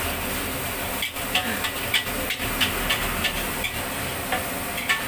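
Steady hiss and sizzle from a wok of fried rice on a gas burner, with scattered short crackles as the rice is worked in the wok.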